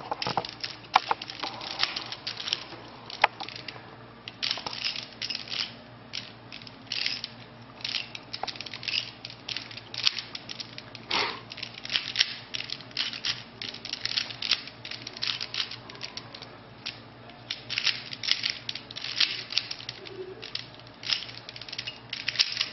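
Plastic Rubik's Cube being turned fast by hand during a solve: a rapid, irregular run of clicks and rattles as the layers snap round.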